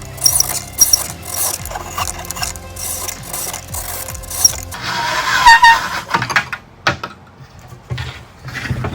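Hand-tool rubbing and scraping strokes on a fiberglass fairing. About five seconds in there is a brief higher-pitched whine, followed by a few scattered clicks.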